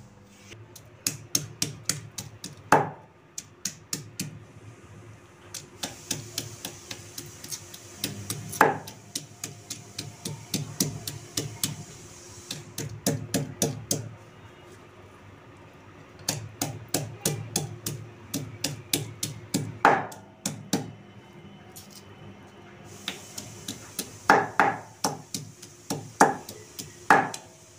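Stone batta pounding raw mango pieces, onion, chilli and mint on a ridged stone sil grinding slab: runs of quick knocks, about four a second, broken by short pauses, with a few harder single strikes.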